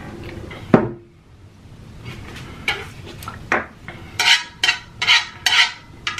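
Wooden chopsticks scraping across a large nonstick pan, gathering leftover noodles in repeated short strokes, about two a second, louder in the second half. A single sharp knock comes about a second in.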